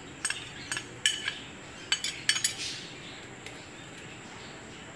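Steel spoon clinking and scraping against a glass bowl as chopped onion is scraped out: about seven sharp, lightly ringing clinks in the first two and a half seconds, then it goes quiet.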